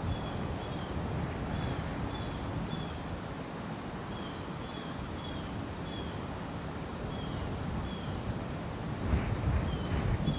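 Mountain wind blowing steadily, with short high chirps repeating about twice a second. Near the end the wind gusts harder and buffets the microphone.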